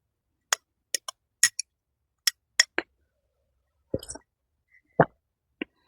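A series of about a dozen short, sharp clicks and taps at uneven intervals, with silence between them.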